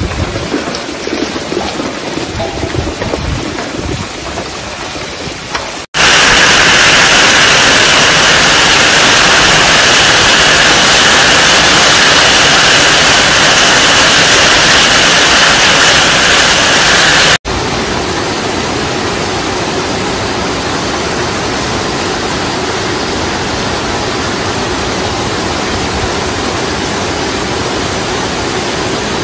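Hailstorm: hail and rain pelting down as a dense, steady rushing noise. The sound changes abruptly twice, with a much louder stretch in the middle.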